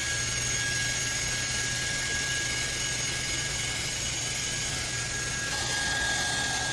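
Hair dryer running steadily: an even rush of air with a thin high whine and a low hum. Its sound changes slightly about five and a half seconds in.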